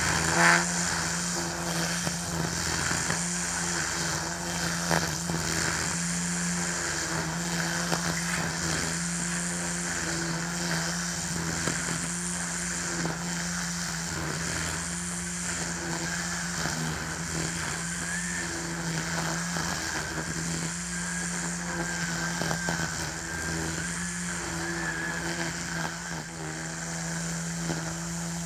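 Ryobi 40V battery-powered string trimmer running steadily, its spinning line whirring as it cuts through tall grass.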